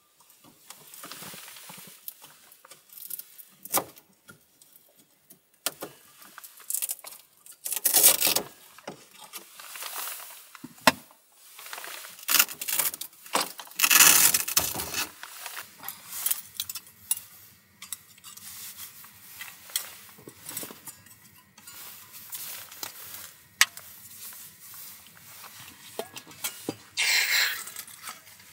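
Camp gear being handled: rustling and scattered light clicks and clinks of small metal and plastic items, with a longer rustle near the end as a folding gas stove is slid out of its fabric pouch.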